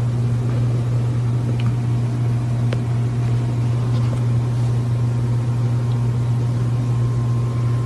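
A steady low hum that does not change, with a few faint ticks.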